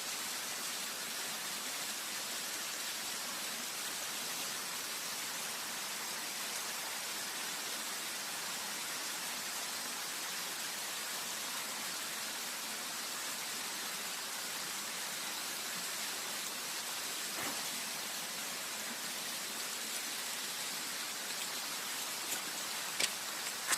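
Flowing river water, a steady, even rushing hiss, with a few faint clicks near the end.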